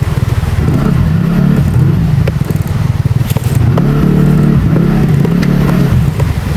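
TVS NTorq 125 scooter's single-cylinder engine running while being ridden, its pitch rising and falling with the throttle, with scattered clicks and knocks from the rough track.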